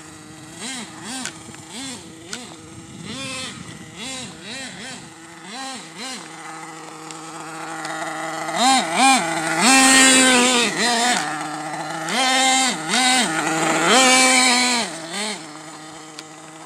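Ofna RC monster truck's small two-stroke nitro engine revving up and down in quick throttle blips, getting louder in the second half with longer high-revving runs.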